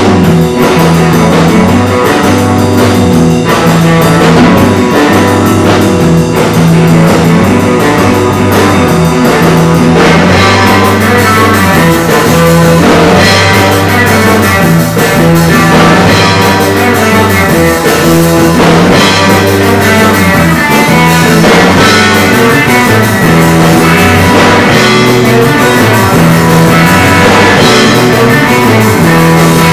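A rock band playing loudly live: electric bass guitar, electric guitar and drum kit together, the bass holding a repeating low line under the guitar and drums.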